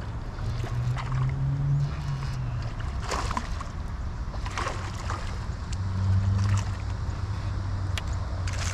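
Hooked largemouth bass splashing at the surface as it is reeled in to the bank, with a few sharp splashes in the middle. A steady low hum runs underneath.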